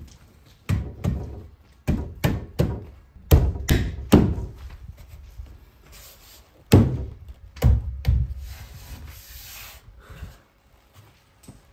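A wooden window sill board being knocked and shoved into place in its frame: about ten hard wooden thumps in clusters, then a scraping slide of wood on wood near the end.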